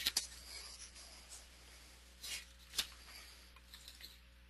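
Quiet room tone with a low steady hum, broken by a few soft, short rustling sounds near the start and again about two and a half seconds in.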